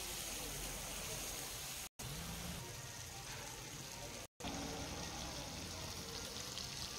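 Whole masala-coated red snapper frying on a hot flat griddle (tawa): a steady sizzling hiss of fish in oil, cut off twice for an instant, about two and four seconds in.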